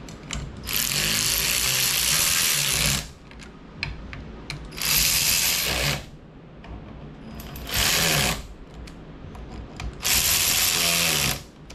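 Hand-held power tool running the cam phaser bolts down, four short bursts separated by brief pauses with light clicks of handling, as the phaser bolts are snugged up.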